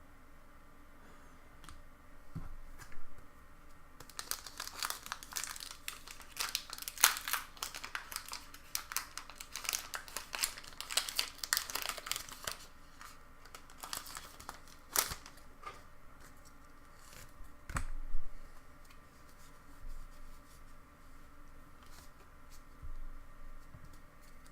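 Foil wrapper of a Pokémon booster pack being torn open and crinkled: a dense crackle from about four seconds in until about thirteen seconds, then scattered light taps and clicks.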